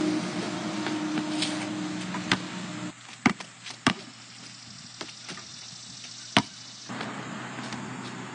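Basketball knocking against the backboard and rim and bouncing: about five sharp knocks at uneven gaps of roughly a second, over a steady hiss.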